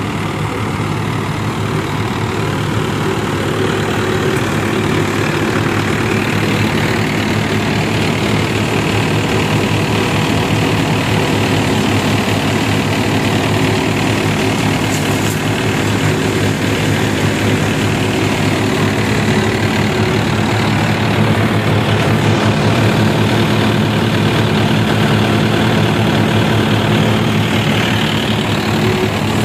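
Mahindra Yuvo 475 DI tractor's diesel engine running steadily under load, driving a Saggu groundnut thresher that is threshing peanut plants; the engine hum sits under a constant rushing noise from the working machine.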